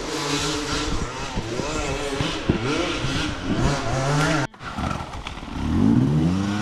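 Dirt bike engine revving hard on a steep climb: repeated throttle blips with the pitch rising and falling, a sudden break about halfway through, then one long rev up and back down near the end.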